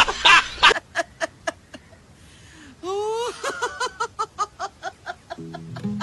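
Laughter: dense, loud laughing that breaks off under a second in into short, evenly spaced 'ha' bursts, about four a second. About three seconds in, a higher laugh rises in pitch and then runs on in quick pulses. Music with low, steady notes comes in near the end.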